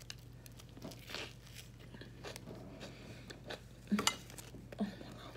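Close-miked eating of a sub sandwich: chewing with soft crunches and crinkles, and a few sharper clicks about four seconds in.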